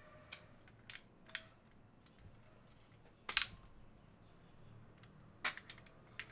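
Scattered sharp mechanical clicks from an old film camera being handled and worked by hand. There are about three in the first second and a half, a louder, slightly longer clack a little over three seconds in, and a few more near the end.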